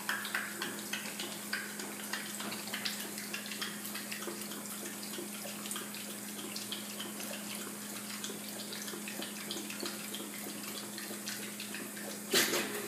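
Boxer dog lapping from the running stream of a stainless-steel drinking fountain: quick, irregular wet laps over the steady splash of water into the basin, with a steady low hum underneath. A sharp knock near the end.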